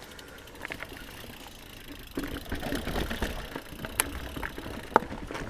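Mountain bike setting off down a dirt trail: tyres rolling and the bike rattling over the ground, louder from about two seconds in, with two sharp knocks about four and five seconds in.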